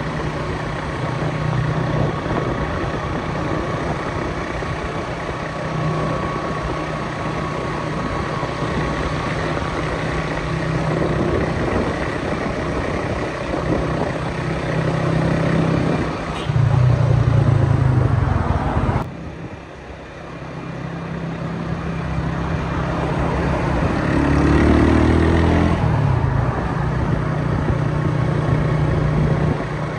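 Motor vehicle engines and road traffic running steadily, with a louder, heavier engine stretch a little past halfway. The sound cuts off abruptly soon after, builds back up, and an engine revs up a few seconds later.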